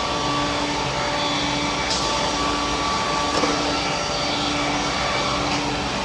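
Circular-saw sawmill line running: toothed saw heads cutting the sides of a squared log cant as a chain conveyor feeds it through. A steady, dense machine noise with a steady hum under it.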